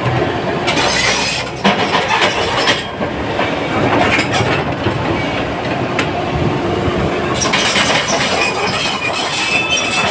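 JCB 205 tracked excavator working, its diesel engine running under load with a dense, irregular clatter throughout.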